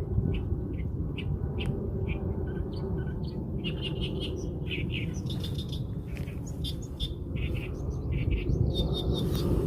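Birds chirping with many short, repeated high notes, thicker in the second half, over a steady low rumble.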